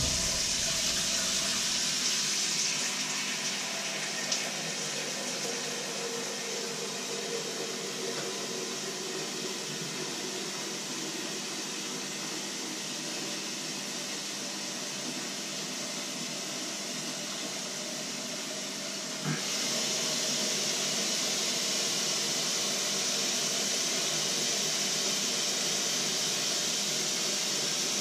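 Water running steadily from a kitchen tap, turned up a little about two-thirds of the way through and shut off at the end.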